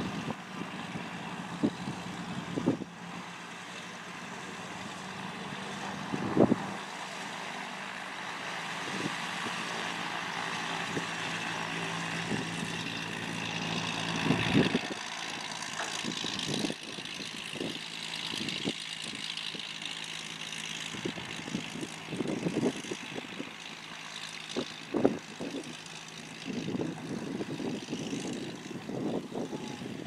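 Piper light aircraft taxiing at low power: the Seneca's twin piston engines and propellers hum steadily, with gusts of wind thumping on the microphone. About halfway through the steady hum gives way to a fainter propeller drone from a single-engine Piper, still with wind gusts.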